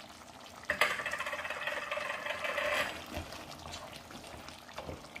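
Wooden spoon stirring a thick, reduced duck curry in a hot pan, the gravy sizzling. A hiss of sizzling starts suddenly under a second in and lasts about two seconds, then gives way to softer stirring with light clicks.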